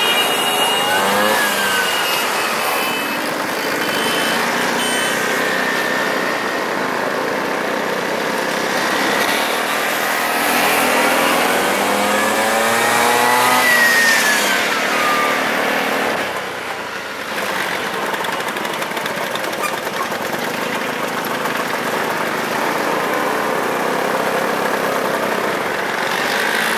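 Motorcycle engines running in a continuous din, with bikes accelerating: a short rise in engine pitch about a second in, and a longer climb from about nine seconds in that peaks at fourteen seconds and then falls away.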